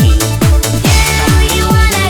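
Electronic dance music with a steady, heavy beat about twice a second and synth tones over it.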